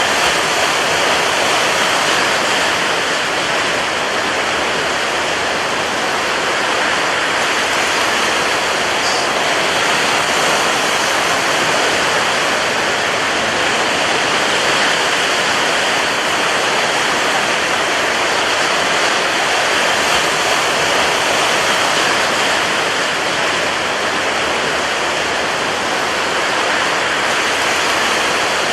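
Rough, agitated sea: breaking surf as a dense, steady rush of noise, with no single wave crash standing out.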